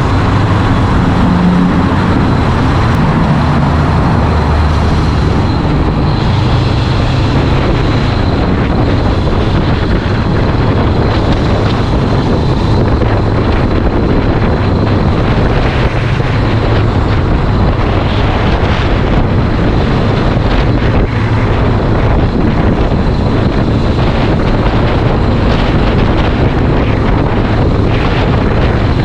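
Heavy wind noise on the microphone of a riding Honda CBR500R, over its parallel-twin engine running underneath. The engine's note is clearer in the first several seconds, then the wind rush covers most of it.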